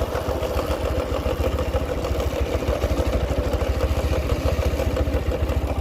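TVS Apache RTR 160 4V single-cylinder motorcycle running with a steady rasping 'khar-khar' noise from the drive chain and front sprocket. The 13-tooth front sprocket has a chipped tooth and was flipped around, but the noise persists, and the rider says it gets much louder when moving with the clutch pulled in.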